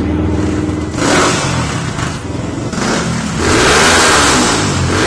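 Motorcycle engine running and being revved, its pitch climbing and dropping back, with the biggest rev about three and a half seconds in.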